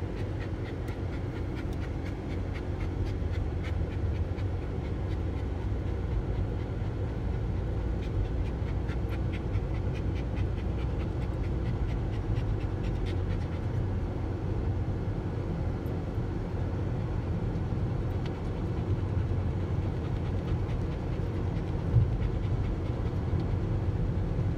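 Steady car-cabin road rumble with dogs panting, and a single thump near the end.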